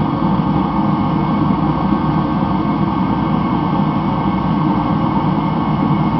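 Mr. Heater Contractor Series forced-air torpedo heater running steadily, its fan and burner making an even rush of noise with a faint steady hum. This is the sound of the rebuilt heater burning normally and working properly.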